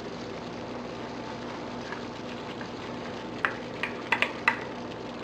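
Pork menudo stew simmering in a pan with a steady low bubbling hiss. About three and a half seconds in come several quick, sharp clicks and knocks as diced potatoes and carrots are dropped into the pan.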